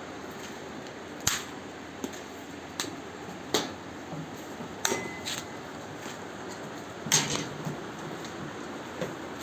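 Irregular sharp knocks and clacks, about eight in all, the loudest about seven seconds in, over a steady background hiss.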